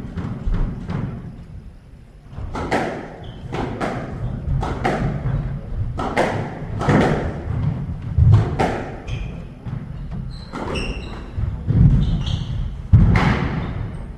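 Squash rally: the ball cracks off the rackets and the walls about once a second, in an irregular rhythm. In the second half there are short squeaks of shoes on the wooden court floor.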